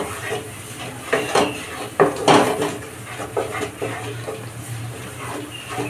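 Wooden spatula scraping and pushing thick, frying masala paste around a nonstick kadhai, in irregular strokes; the loudest scrapes come about one to two and a half seconds in.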